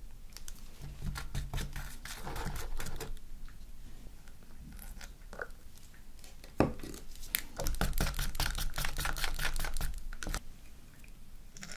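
Wooden craft stick stirring thick black glue-and-iron-filing slime in a plastic cup, in quick runs of clicks and scrapes, with long nails knocking against the cup; one sharper knock about six and a half seconds in. The borax activator is being mixed in as the slime starts to thicken.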